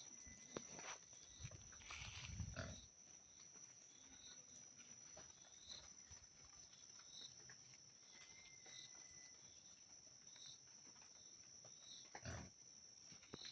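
Faint, low, pig-like grunting snorts from an animal in the first few seconds and again near the end. Underneath are a steady high whine and faint short chirps repeating about every second and a half.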